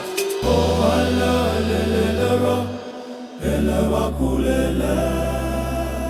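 Zulu choral house music: voices chanting in harmony over long, deep held bass notes, with no beat. The music breaks off briefly about three seconds in, then the choir and bass come back.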